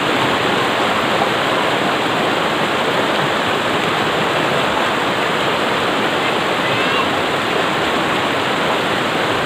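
Rocky river rapids: fast white water rushing over boulders in a loud, steady roar.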